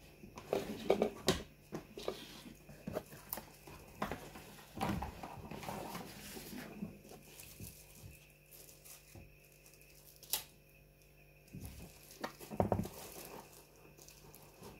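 Hands handling a black cardboard smartphone box: scattered taps, clicks and paper-like rustles and scrapes, a single sharp click partway through, then a burst of rubbing near the end as the box's lid is lifted off.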